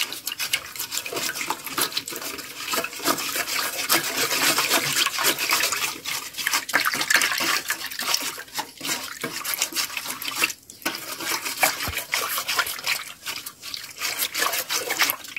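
Wire whisk beating the liquids for a bread dough (warm water, oil, eggs and sugar) in a bowl, a fast, uneven splashing with many small clicks.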